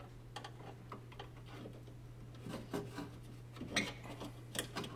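Flat blade screwdriver prying at the plastic clips that hold the window glass to the window regulator inside a car door: light scraping and several small clicks, the sharpest in the second half.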